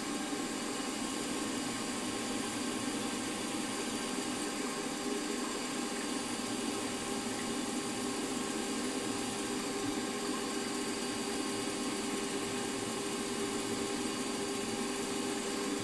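Milling machine spindle running steadily at about 1300 RPM while a small 2.3 mm drill is fed down through a metal part: an even motor hum with several constant tones and no change in level.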